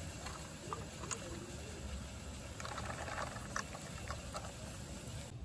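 Die-cast toy garbage truck pushed by hand over gritty dirt: faint scraping and a few light clicks over a steady low rumble, with a short burst of scraping about halfway through.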